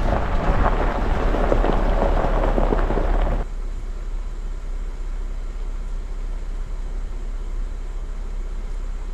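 Jeep rolling on a dirt road, tyres crunching over gravel, then coming to a stop about three and a half seconds in, leaving a steady low engine rumble.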